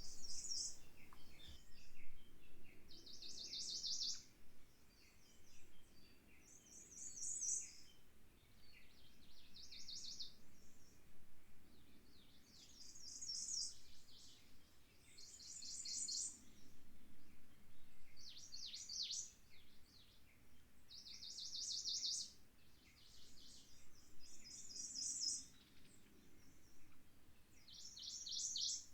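Small songbirds singing short, high, rapidly trilled phrases, one every two to three seconds, over a faint wind.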